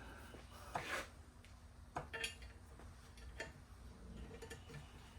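A few faint, sharp metal clicks and clinks as small steel parts are handled and fitted onto the grinder's small wheel attachment, spaced irregularly about a second apart, over a low steady hum.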